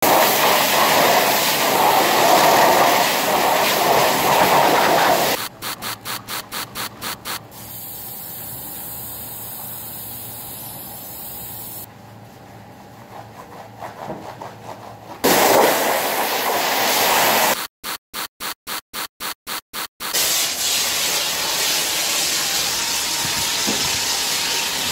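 Pressure-washer spray rinsing a car's wheel and foamed engine bay, loud and steady, broken twice by quick on-off pulses about four a second. In the middle come quieter stretches of a stiff brush scrubbing a soapy rubber floor mat.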